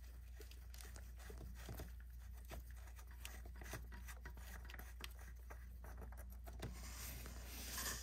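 Faint scratchy rubbing and light clicks of a plastic transmission fill plug being unscrewed by hand, over a steady low hum.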